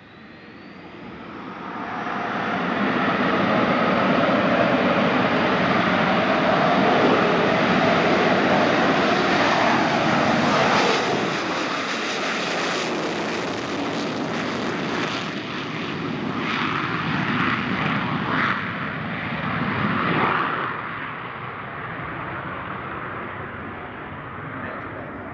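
F/A-18 Hornet's twin jet engines at full power on a takeoff run. The roar swells as the jet accelerates toward and past the listener, drops in pitch as it goes by about halfway through, then fades as it climbs away.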